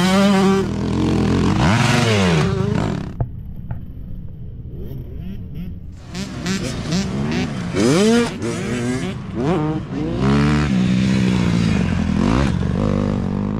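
Youth motocross dirt bike engines revving hard as the bikes race past, the pitch sweeping up and down with the throttle and gear changes. The engine sound drops for a few seconds about three seconds in, then rises again with another long run of revving.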